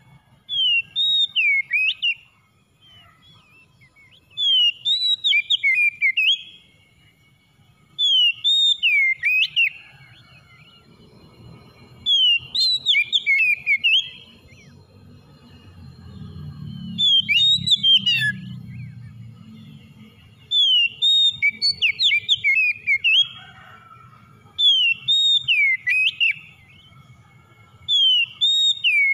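Oriental magpie-robin singing: a short phrase of slurred whistles that rise and fall, repeated eight times at about four-second intervals.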